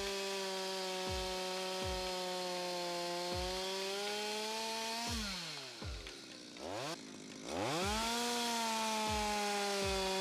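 Stihl MS 250 two-stroke chainsaw running at full throttle while cutting through a wooden block. About five seconds in, the engine note falls away and drops quieter for a couple of seconds, then revs back up and runs steady again.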